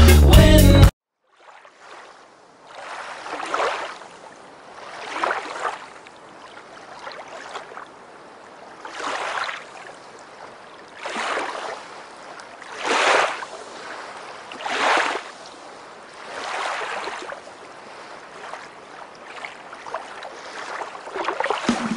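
Waves washing in slow swells, roughly one every two seconds, with no steady tone in them. Music stops abruptly about a second in.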